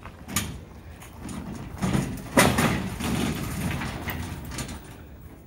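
Golf cart driving up metal loading ramps onto a truck rack, its motor running under a string of clanks and rattles from the ramps under its wheels, the loudest clank about two and a half seconds in.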